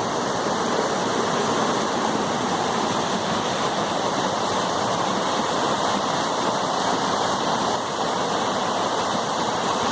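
Waterfall rushing, a steady loud hiss of falling water.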